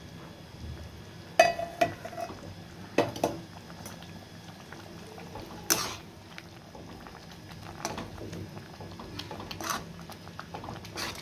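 Metal ladle clinking and scraping against a kadhai as soya chaap pieces are stirred into a thick simmering onion gravy, with a low bubbling underneath. The sharpest clinks come about a second and a half in and just before six seconds, with lighter ones through the rest.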